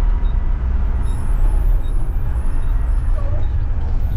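Mack front-loader garbage truck's engine running, heard from inside the cab as a steady low rumble, with a faint tick repeating a little under once a second.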